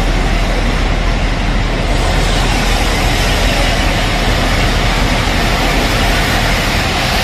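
Steam locomotive 60007 Sir Nigel Gresley, a three-cylinder LNER A4 Pacific, moving slowly and working steam. It is heard as a steady, loud hiss over a deep rumble, with no distinct beat. The hiss grows stronger about two seconds in.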